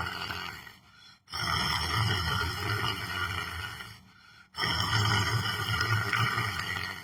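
A person snoring in slow, regular breaths: one breath tapering off about half a second in, then two long ones of about two and a half seconds each, with a short pause before each.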